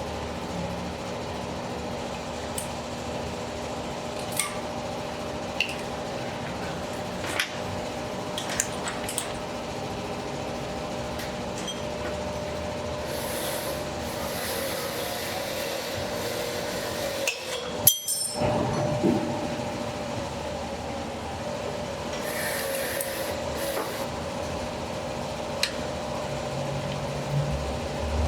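Scattered metallic clinks and taps of hand tools on engine parts over a steady workshop hum, with a sharper knock about two-thirds of the way through.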